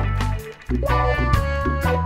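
Instrumental background music with a steady bass line and repeated pitched notes; it drops out briefly about half a second in.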